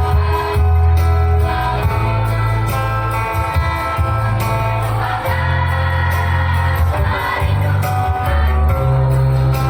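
School choir singing with instrumental accompaniment, a deep bass line moving from one held note to the next about every second.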